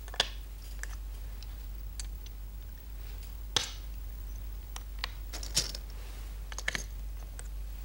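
Go stones being placed on a large upright magnetic demonstration board: several sharp, separate clicks a second or so apart as moves are set down one by one, over a low steady hum.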